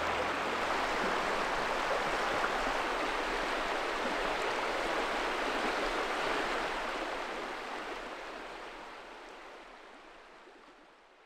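Steady rush of running water, fading out gradually over the last five seconds.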